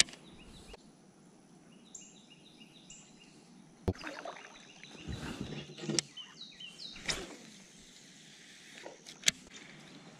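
Sharp clicks and light knocks from a baitcasting rod and reel being handled in a plastic kayak, the loudest about 9 seconds in as the rod is raised to cast. A bird sings short stepped high phrases in the background.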